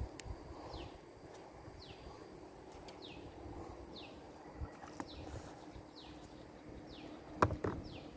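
A bird calling over and over, short high notes that slide downward, roughly every three-quarters of a second. A single sharp knock sounds about seven and a half seconds in.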